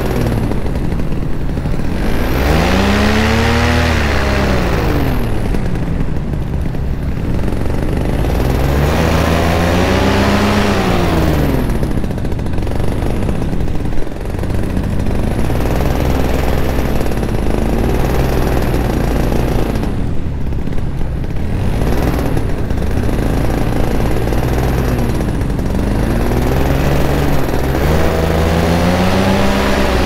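Paramotor two-stroke engine and propeller running in flight, with a rush of air past the microphone. The engine's pitch rises and falls in long swells every few seconds.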